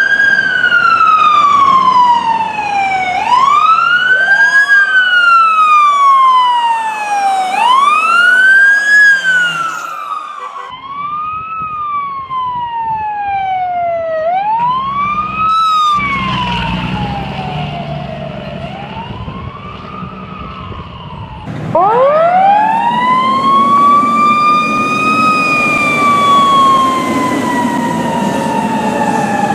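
Fire truck sirens wailing, each cycle rising quickly and falling slowly, repeated over and over. About two-thirds of the way through, a siren winds up from a low pitch in one long rise and then slowly falls, over the rumble of the truck.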